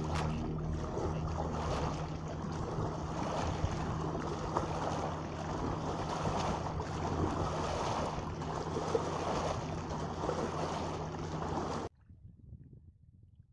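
Wind buffeting the microphone over water lapping and splashing at a riverbank, with a steady low hum underneath. It cuts off suddenly near the end.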